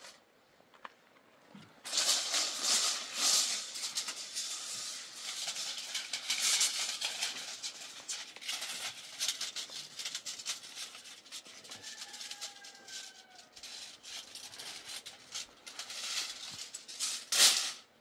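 Close, crinkly rustling and crackling with many small clicks, as material is handled by hand. It starts about two seconds in and stops sharply just before the end, with its loudest burst near the end.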